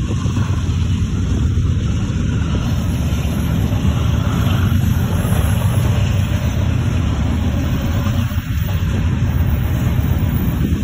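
Freight train of covered grain hopper cars rolling past close by: a steady, loud rumble of steel wheels on the rails.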